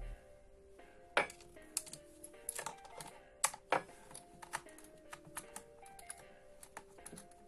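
Quiet background music with held notes, over scattered sharp clicks and taps of small plastic speaker parts being handled and fitted together, the loudest about a second in and twice around three and a half seconds in.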